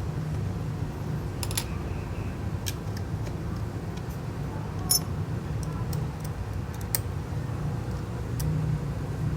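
Small, sharp clicks and taps of tools and parts being handled during work on an iPhone 6S, a few seconds apart, over a steady low background hum.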